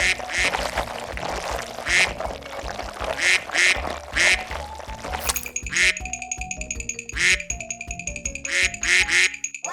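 Playful background music with short, squawky quack-like notes popping up over it every second or so.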